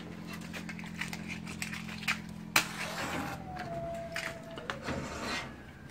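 Light kitchen handling noises, with small clicks and a short sharp scrape about two and a half seconds in, over a faint low hum that stops about three seconds in.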